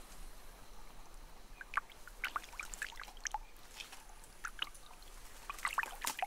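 Small drips and light splashes in shallow water, coming in short irregular clusters over a faint steady hiss.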